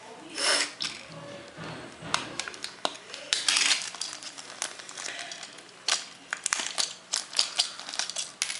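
Plastic clicks and snaps from handling a Samsung Corby phone: its battery is seated and its snap-on back covers are handled and fitted. A small plastic bag crinkles among the clicks.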